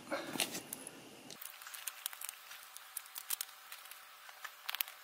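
Faint clicks and light scrapes of hands fitting a metal trigger unit onto an SMK QB78DL air rifle's receiver, with a few quick clicks close together near the end. A soft rustling noise stops about a second and a half in.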